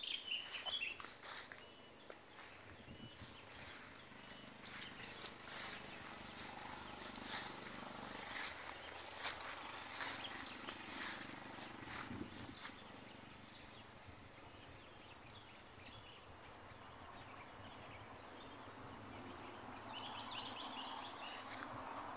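Insects chirring in a steady high-pitched drone, with irregular light knocks during the first half or so.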